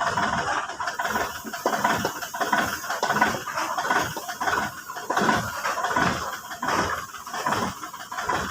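Backhoe running, its engine going steadily under irregular mechanical clanks and rattles from the working machine.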